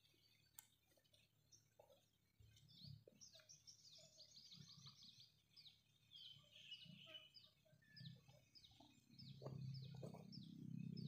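Faint birdsong. A quick run of short, high, falling chirps is followed by single chirps repeated about twice a second. Low rustling near the end comes from plants and soil being handled.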